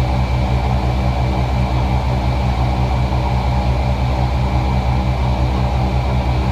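A boat's motor running steadily under way, a loud low hum with a rapid, even throb.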